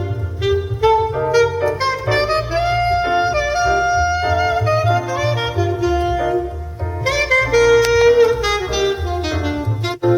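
Jazz trio recording with saxophone carrying the melody over upright bass, played through a Mercedes C-Class W205's Burmester surround sound car audio system.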